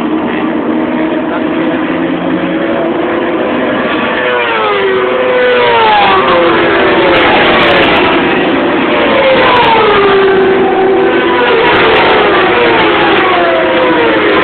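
Several racing motorcycles pass one after another at speed. Each engine note drops in pitch as it goes by, and the sound gets louder from about four seconds in as more bikes come through.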